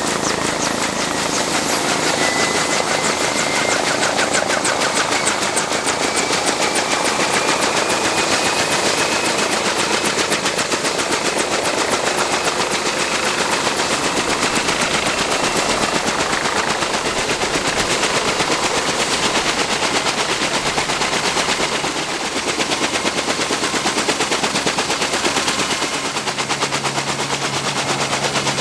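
Kaman K-MAX intermeshing-rotor helicopter running on the ground: a rapid, even chop from its two rotors, with a high turbine whine that slowly rises in pitch over the first ten seconds or so as the rotors come up to speed after engine start.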